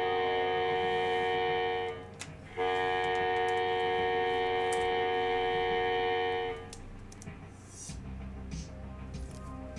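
A sustained electronic horn-like tone with many overtones, held steady, breaking off for about half a second, then held for about four more seconds before stopping. After it come soft clicks and rustles of a trading card being handled and slipped into a plastic holder.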